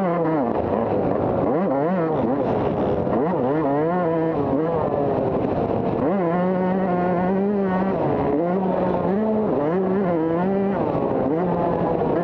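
Motocross bike engine heard close up from the bike itself, its pitch climbing and dropping back over and over as the rider works the throttle, with a stretch of steadier running about six seconds in.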